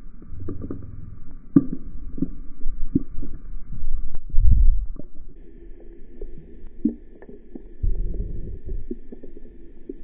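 Muffled underwater rumble and irregular thumps from water moving around a submerged camera, with a hooked bass struggling close by. A faint steady whine runs underneath and jumps higher about halfway.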